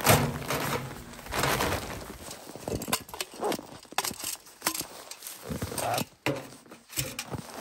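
Irregular crunching footsteps in deep snow and jacket rustling, with a few light knocks as a metal stovepipe section is handled and lifted onto the tent's stove chimney.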